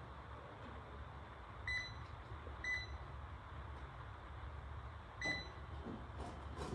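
Control panel of a spinal decompression table giving three short electronic beeps, two a second apart and a third about two and a half seconds later, over a steady low hum. A couple of faint knocks follow near the end.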